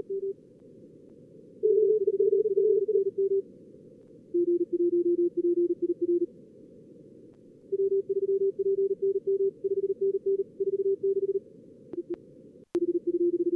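Simulated contest Morse code (CW) from a logging program's practice mode, sent at about 38 to 45 words per minute. There are several stretches of fast keyed beeps at slightly different low pitches over a narrow band of receiver hiss, and a few sharp clicks near the end.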